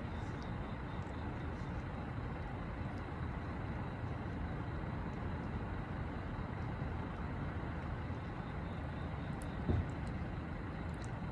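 A cat licking and chewing wet food, faint small clicks over a steady low background rumble, with one brief low thump near the end.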